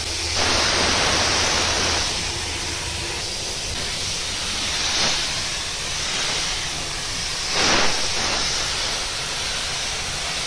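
Compressed-air gravity-feed paint spray gun hissing as it sprays paint onto a car bumper. The hiss swells in three louder passes: from about half a second to two seconds in, briefly around five seconds, and again near eight seconds.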